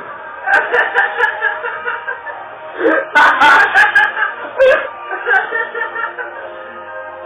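Recorded music playing, with bursts of laughter from people in the room. The loudest burst comes about three seconds in, with a few sharp clicks.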